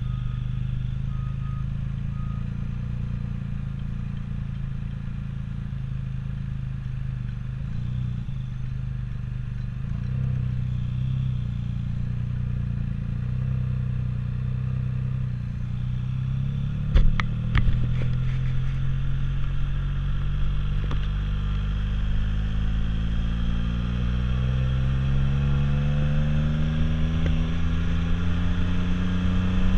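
Motorcycle engine running steadily at low speed, with a few sharp clicks about 17 seconds in; over the last ten seconds its pitch climbs steadily as it accelerates.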